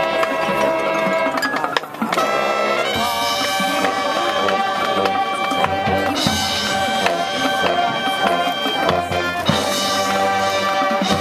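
High school marching band playing brass and percussion, with trumpets, trombones and sousaphones over drums. The band holds chords that change every few seconds, with a brief drop just before two seconds in.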